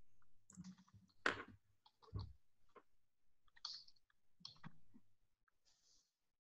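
Near silence with a few faint, scattered clicks and small knocks over a low steady hum; the hum stops about five seconds in.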